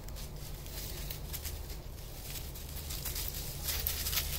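Footsteps crunching and rustling through dry leaves and pine straw, faint at first and a little louder near the end, over a steady low rumble.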